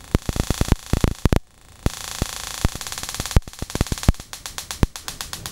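Homemade triggered-spark-gap trigger generator firing its small high-voltage trigger spark over and over, a train of sharp snapping clicks with a hiss behind them. The clicks stop briefly about a second and a half in, then come faster and more evenly, about ten a second, as the pulse rate from the function generator is raised.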